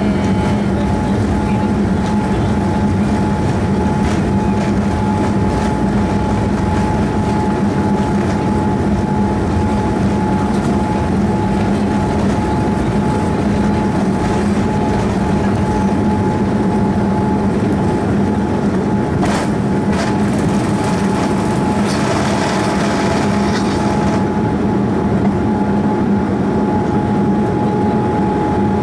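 Cabin noise of a Boeing 787-9 on its takeoff run: the Rolls-Royce Trent 1000 engines at takeoff power give a loud, steady drone with a constant hum, over the rumble of the wheels on the runway. A couple of short thuds come about two-thirds of the way through, and the runway rumble drops away near the end as the aircraft lifts off.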